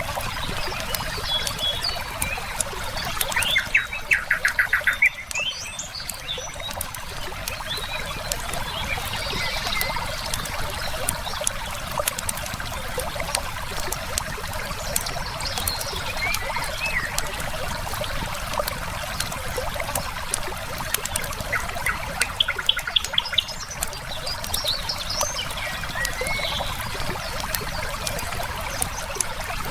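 A river flowing steadily under a crackling wood fire, with many small pops and snaps, while songbirds chirp now and then. Twice, about three seconds in and again around twenty-two seconds, a bird gives a rapid trill of quickly repeated notes, the loudest sound in the mix.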